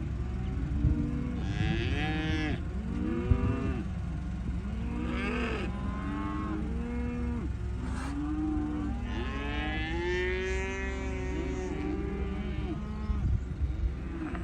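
Many cattle mooing at once, their calls overlapping at different pitches, over a steady low rumble.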